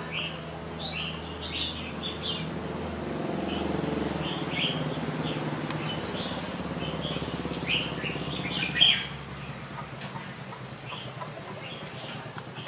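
Small birds chirping in short, scattered calls over a low steady hum, which fades out about nine seconds in. A single sharp knock sounds just before the hum stops.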